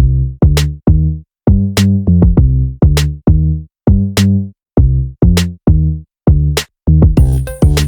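Background music: an electronic drum-machine beat of short, punchy pitched bass notes, each with a sharp hit on top, separated by brief gaps of silence. A busier layer of high percussion comes in near the end.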